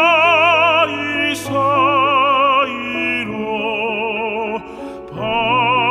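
Operatic tenor singing a Korean art song (gagok) over instrumental accompaniment, holding long notes with wide vibrato. The voice softens briefly about five seconds in, then comes back loud on another held note.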